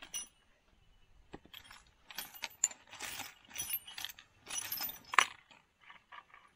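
Small loose steel nuts and washers clinking and jingling against each other as hands rummage through them in search of a nut of the right size. The clinks come in a busy run through the middle, with the sharpest one about five seconds in.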